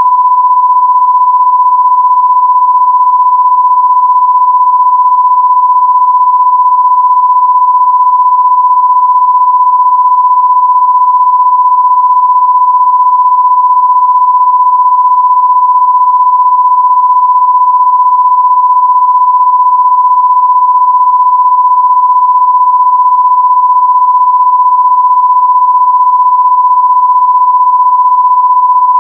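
Loud, steady electronic sine tone of about 1 kHz: one pure pitch held unbroken, like a test tone.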